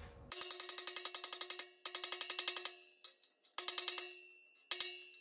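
A paint marker being shaken hard: its mixing ball rattles about ten times a second with a ringing metallic note. It comes in five bursts, the first two long and the last three short.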